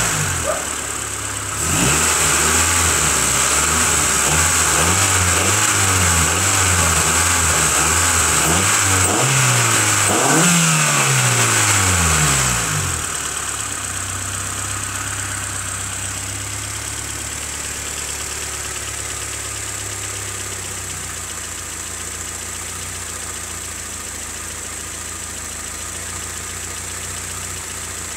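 Honda CRX engine revved several times, its pitch rising and falling, then dropping to a steady idle about thirteen seconds in. The owner suspects a rod knock.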